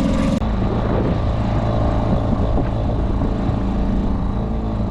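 Small boat's outboard motor running steadily at cruising speed, with the rush of wind and water.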